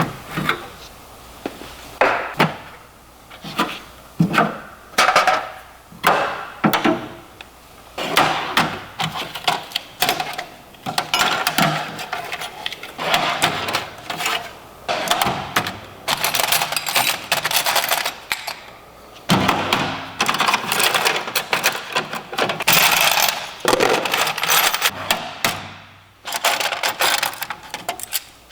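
Metal hand tools such as wrenches and sockets clinking and clattering against each other and the steel toolbox as they are lifted out and set down, a busy run of sharp metallic clanks.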